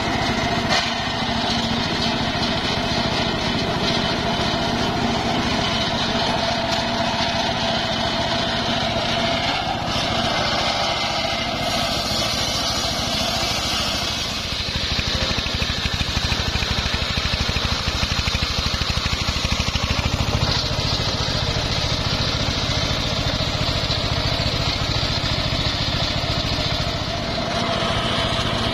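Homemade engine-driven circular sawmill running steadily while sawing timber, its sound changing and growing a little louder about halfway through.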